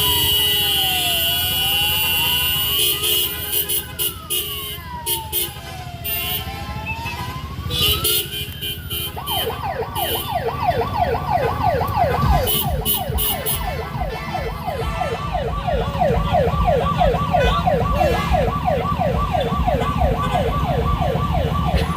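Police car siren sounding a slow rising and falling wail, then switching about nine seconds in to a fast yelp, over the low running of vehicle engines.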